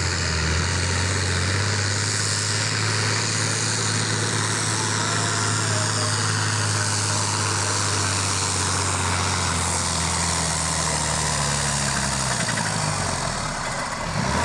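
John Deere diesel farm tractor engine running at full load as it pulls a weight-transfer sled, a steady loud drone while it puts out black smoke. Near the end the engine note sinks and the sound fades as the tractor bogs down and the pull comes to an end.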